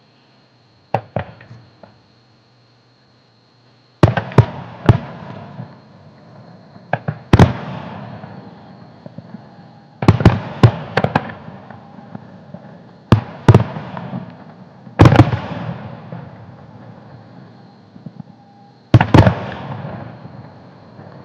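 Aerial fireworks shells bursting overhead: about a dozen sharp bangs, several coming in quick runs of two or three, each followed by a rumbling echo that fades over a few seconds.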